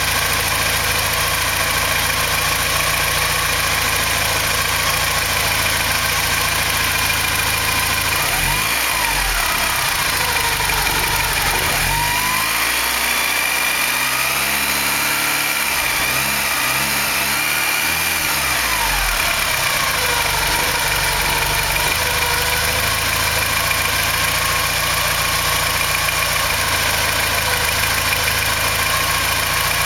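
Porsche 944 inline-four engine running, with its revs rising and falling a few times in the middle before it settles back to a steady idle. It is running on good used hydraulic lifters fitted in place of defective ones.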